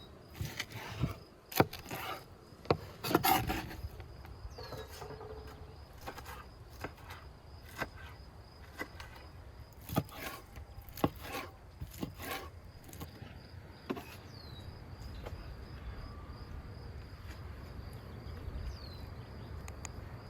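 Knife cutting on a wooden board: a string of irregular knocks that thin out after about thirteen seconds. A steady, high insect buzz sounds underneath.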